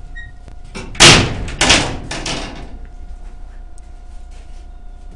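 A heavy hinged panel on a homemade steel airsoft fort banging shut twice, about two thirds of a second apart, each bang followed by a rattle that dies away over about a second.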